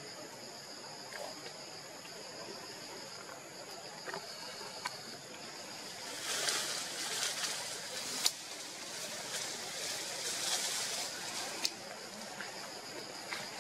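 Insects trill in a steady high-pitched drone. Leaves and branches then rustle in two stretches, starting about halfway in, with a couple of sharp snaps.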